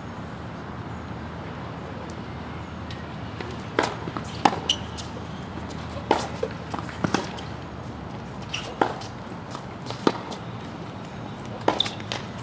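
Tennis rally: a ball is hit back and forth, with sharp racket strikes and ball bounces about every second or so over a steady background hiss. The strikes begin about four seconds in.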